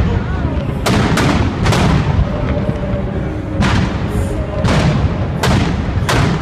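Aerial fireworks shells bursting in a rapid, irregular string of loud booms, about seven in six seconds, each with a rumbling echo. Music plays faintly underneath.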